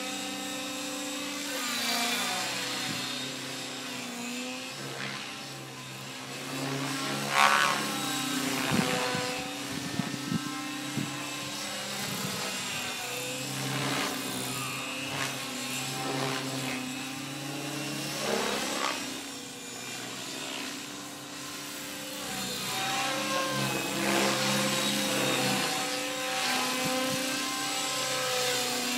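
Align T-Rex 600 Pro radio-controlled helicopter flying, its rotor and drivetrain whine running steadily and shifting pitch as it manoeuvres. The pitch sweeps up and down as it passes close, loudest about seven seconds in.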